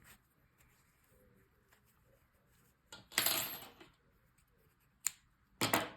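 Handling noises as a crochet piece is finished off: a short metallic clink with a faint high ring about three seconds in, a sharp click about two seconds later, and a brief rustle near the end.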